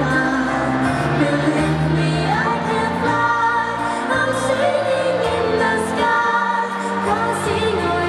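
A woman singing a Cantonese pop song live into a handheld microphone, with instrumental accompaniment.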